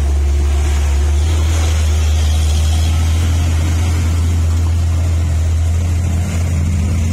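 Diesel engine of a Hino 500 tanker truck running with a loud, steady low drone as it turns through a steep hairpin bend close by.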